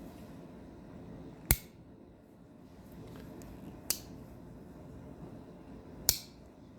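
Three sharp metallic snaps about two seconds apart, the first and last loudest: the blades of a slipjoint pocketknife snapping under its backspring, showing a strong snap.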